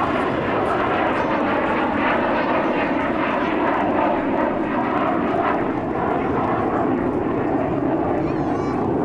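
Steady, loud jet noise from an F-15 fighter's twin turbofan engines as the jet flies past low and climbs away.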